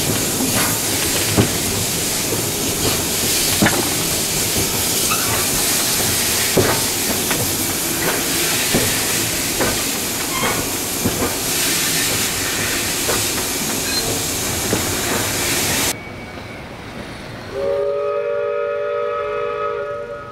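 Steam locomotive running, heard from its wood-loaded tender: a steady hiss and rumble broken by sharp clicks of the wheels over rail joints. Near the end the sound drops away suddenly and a train whistle sounds for about two seconds, several notes held together.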